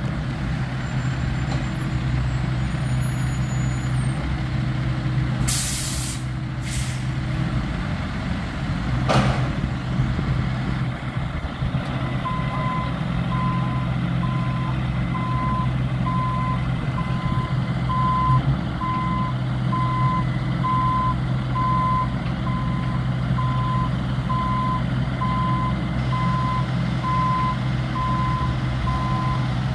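Heavy work vehicle's engine running steadily, with two short blasts of air-brake hiss about six seconds in. A reversing alarm then beeps about once a second from around twelve seconds on.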